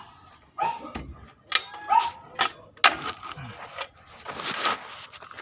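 A dog barking: two short barks about a second apart, with sharp clicks and taps around them and a brief hiss near the end.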